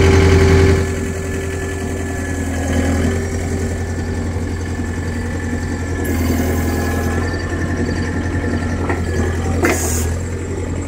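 Skid steer engine running steadily with a deep hum; it drops back a little under a second in, and a brief rising whine sounds near the end.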